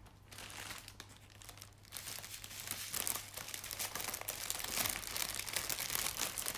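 Clear plastic packaging crinkling as it is handled, sparse at first and busier from about two seconds in.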